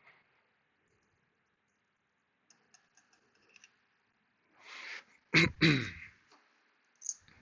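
A few faint clicks, then a short breathy hiss and a brief vocal sound from a man about five and a half seconds in, the loudest thing here, with one more click near the end.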